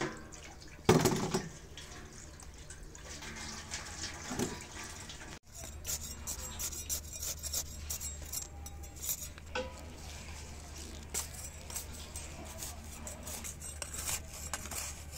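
Dry, crumbly soil being poured and worked into a plastic plant pot: scattered crackling and rustling, with one loud knock about a second in.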